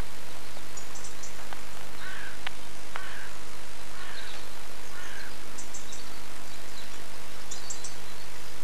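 Steady hiss and low hum of an old home camcorder's soundtrack, with faint short bird calls scattered through it and a few light clicks.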